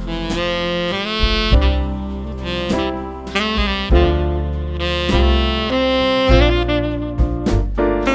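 Jazz music with a saxophone playing the melody over a low bass line and light percussion.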